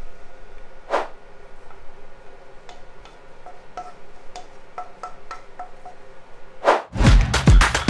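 Edited-in sound design: a whoosh about a second in, then a run of light chime-like notes over a faint steady tone. A second whoosh leads into loud music with a steady beat near the end.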